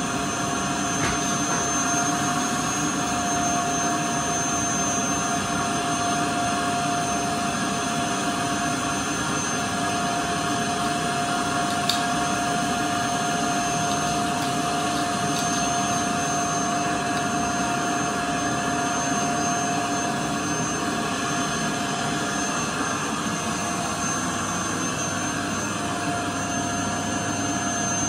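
Bagless canister vacuum cleaner running steadily, its motor giving an even rushing noise with a steady whine. A single short click about halfway through.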